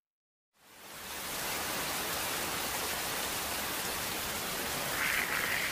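Heavy rain falling steadily, fading in from silence about half a second in.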